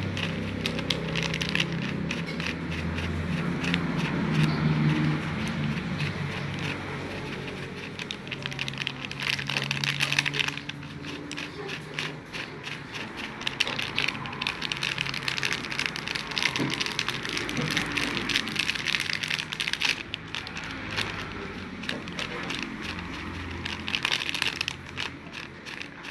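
Crisp fried wonton skins rustling and crackling as they are tossed and stirred, a dense, irregular crunchy patter.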